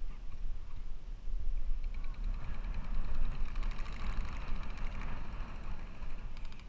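Wind buffeting the microphone in a low, uneven rumble. Over it, distant airsoft guns fire rapid clicking bursts from about two seconds in, with one sharper shot near the end.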